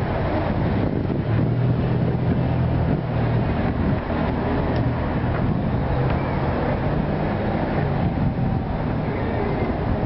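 Steady low rumble of street traffic, with a vehicle engine's hum that is strongest in the first half.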